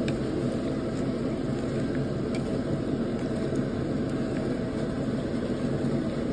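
Steady mechanical hum with a rushing, whirring noise, low-pitched and unchanging.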